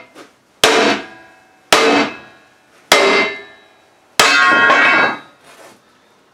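A painted steel plate on a concrete floor is struck four times, about a second apart. Each strike is a sharp metallic clang that rings out, and the last rings the longest.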